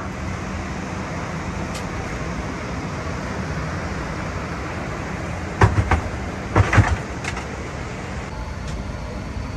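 Steady vehicle rumble and noise, with two short clusters of sharp knocks a little past halfway through.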